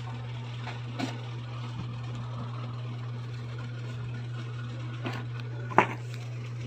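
A steady low hum, with a few small clicks or knocks; the sharpest comes near the end.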